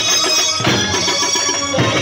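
Loud live band music: a reedy wind-instrument melody over drums, with heavy drum strokes a little over a second apart.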